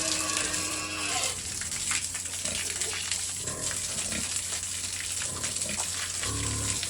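Pigs grunting over a steady hiss of water from a hose washing them down.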